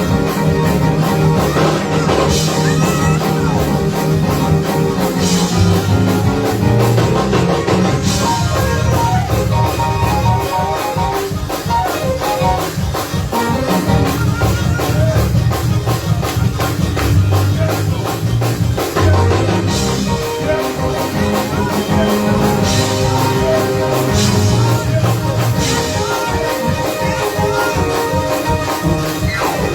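Live church band playing an up-tempo praise-break groove: drum kit and tambourine keeping a fast, driving beat over a heavy bass line, with sustained keyboard or organ tones above.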